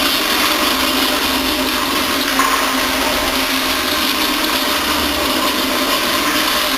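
Toilet flushing: a steady, loud rush of water through the bowl.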